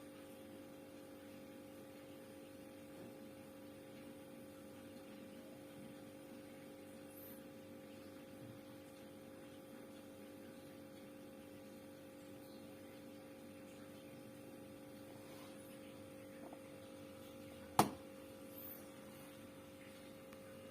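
A Sharp two-door refrigerator runs with a faint, steady hum while it cools down. There is one sharp click about 18 seconds in.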